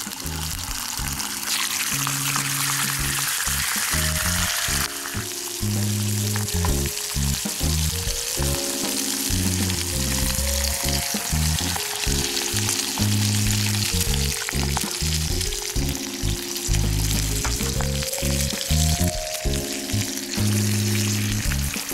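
Bacon sizzling and spitting as it fries in a small cast-iron skillet, a steady high hiss, under background music.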